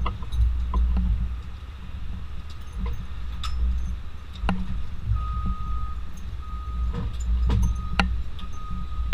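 Steady low vehicle rumble with scattered sharp metal knocks and clanks as handlers work at a horse shipping stall; from about five seconds in a single-pitched electronic beep repeats roughly once a second, like a ground vehicle's reversing alarm.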